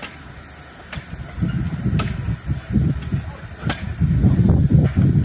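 Narrow-gauge steam locomotive at the station: an uneven low rumble that starts about a second and a half in and grows louder near the end, with three sharp clicks in between.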